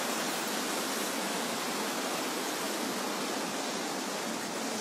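Steady rush of fast-flowing floodwater, an even noise without breaks.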